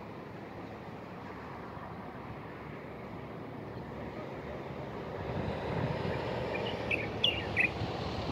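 Steady outdoor noise, a mix of wind and distant road traffic, swelling about five seconds in. Near the end a bird gives a few short, high chirps.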